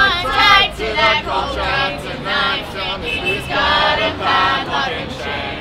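A small group of men and women singing a protest song together.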